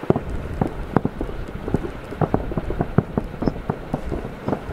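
Fireworks display: aerial shells and ground effects going off in a rapid, irregular run of booms and pops, about five a second, over a low rumble.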